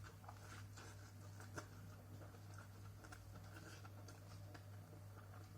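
Near silence: room tone with a steady low hum and a few faint small clicks.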